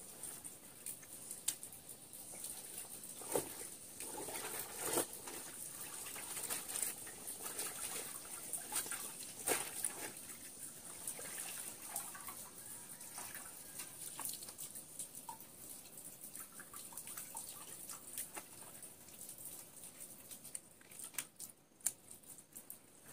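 Water splashing and dripping into a metal basin as a wet cloth is lifted and wrung out by hand, in irregular spatters that come most often in the first half. A steady high hiss runs underneath.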